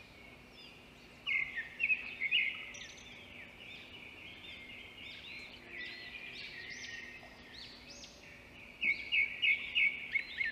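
Small birds chirping and twittering, several at once, with louder runs of quick repeated chirps about a second in and again near the end.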